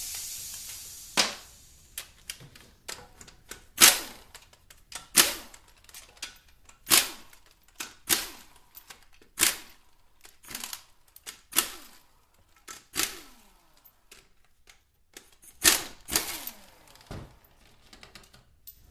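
A cordless power tool's whirr dies away in the first second, then comes a string of sharp metallic clicks and clacks, irregular and roughly once a second, as the bell-housing bolts of an automatic transmission are worked out with the tool.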